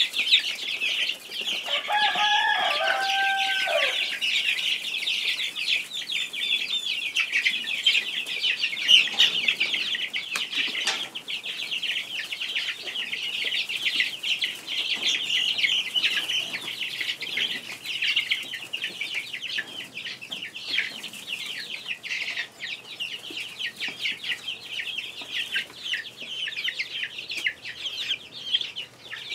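A flock of young chicks peeping constantly, many high, short calls overlapping, with one lower-pitched chicken call about two seconds in.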